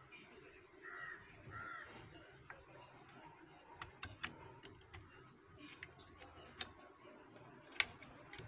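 Faint handling of a homemade aluminium crossbow trigger mechanism as it is pressed into its slot in a wooden stock: a few sharp clicks, two close together about four seconds in and more near the end. Two short calls, like a bird's, sound in the background about a second in.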